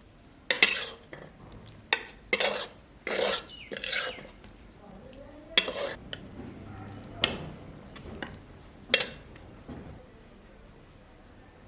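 A spatula scraping the bottom of a pan in irregular strokes while stirring kalakand's thickening milk mixture as it cooks.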